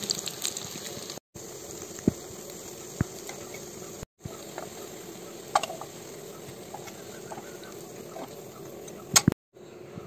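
Chicken cutlets shallow-frying in hot oil: a steady sizzle with scattered small pops and crackles. A few sharp clicks of metal tongs come as the cutlets are lifted out of the pan. The sound breaks off briefly a few times.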